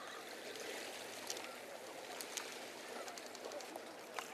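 Faint, steady wash of calm sea water against a rubble breakwater, with a few soft clicks.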